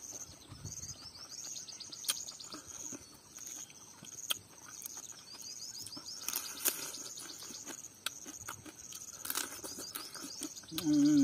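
Cooked crab shells and legs cracking and snapping as they are broken apart by hand to eat, in scattered sharp clicks, over steady high insect chirping. A short hummed voice sound comes near the end.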